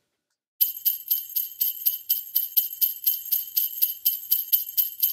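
Jingle bells shaken in a steady rhythm, about four shakes a second, starting about half a second in.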